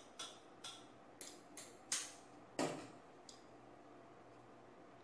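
Faint, irregular clicks and crackles from a stainless steel pot of ghee heating on an induction cooktop, about eight in the first three seconds or so, the loudest about two seconds in.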